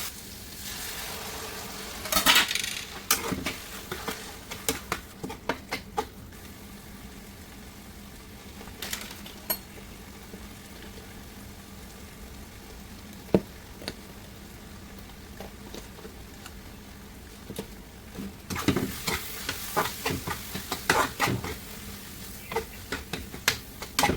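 A utensil stirring and scraping in a pan of curry, over a faint steady sizzle. The clicks and scrapes come in bunches near the start and again in the last few seconds, with a quieter stretch between.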